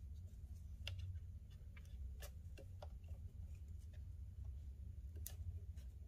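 Faint handling noise of 550 paracord being threaded and pulled into a knot by hand: a few scattered soft ticks and rustles at irregular moments, over a steady low hum.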